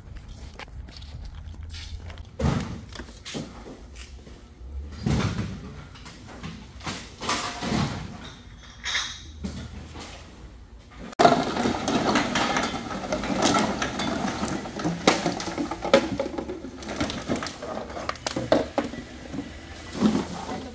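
A plastic bag of empty bottles rustling, with scattered knocks, as it is carried in. About halfway through, a sudden switch to a dense clatter of empty plastic bottles, jugs and cans being tipped out and handled on a metal sorting table.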